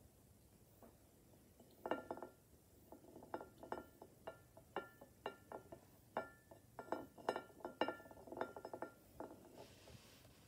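Pink glazed ceramic plate and bowl being tapped, giving a run of short ringing clinks in an uneven rhythm that starts about two seconds in and stops shortly before the end.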